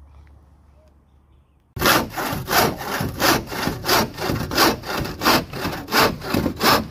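Hand saw cutting through a laminated chipboard panel in steady back-and-forth strokes, about one and a half a second, starting about two seconds in.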